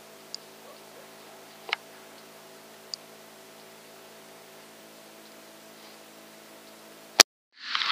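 Faint steady electronic hum with a few soft ticks, then near the end a single suppressed rifle shot at feral hogs, followed at once by a loud rush of noise.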